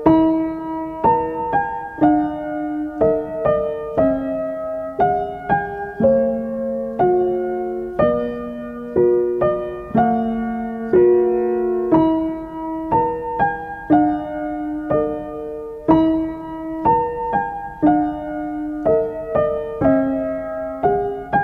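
Background piano music: a slow melody of single struck notes, about one or two a second, each ringing and fading.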